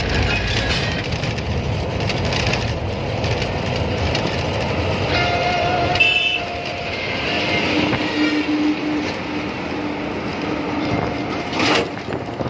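Truck driving on a highway, heard from inside the cab: steady engine and road noise. A horn sounds about five seconds in, and a steady low tone is held from about seven to eleven seconds.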